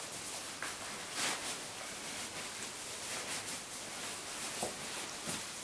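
Faint rustling and a few soft scuffs as a roll mat is unrolled and pressed out against the inside of a PLCE long back bergan.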